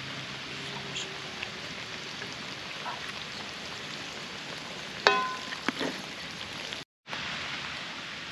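Steady sizzle of food frying in a pan, with a sharp metal clink that rings briefly about five seconds in. The sound cuts out for a moment near the end.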